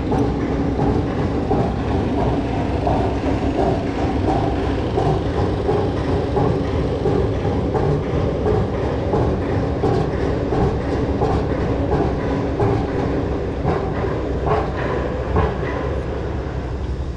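Steady mechanical rumble of a passing vehicle, with a held hum and faint regular clicks, easing a little near the end.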